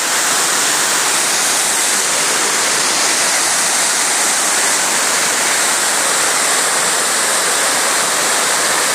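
Waterfall's water crashing and rushing in a steady, loud, unbroken roar.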